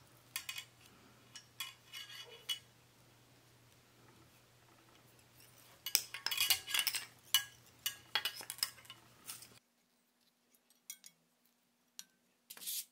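Faint clicks, taps and light metallic clinks of fly-tying tools handled at a vise as a rabbit-fur dubbing loop is wrapped onto the hook, busiest in the second half, with a short rustle near the end.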